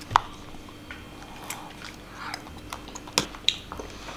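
Metal spoons clicking and scraping in small plastic cups of grass jelly (cincau), with soft eating sounds. The sharpest clicks come just after the start and again about three seconds in.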